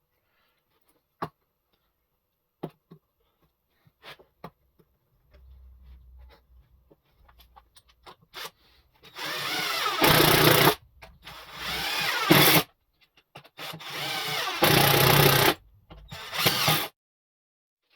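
Power drill running in four bursts of one to two seconds, each louder toward its end as it bears down into the wood, as when driving screws into larch timber. A few scattered small knocks come before it.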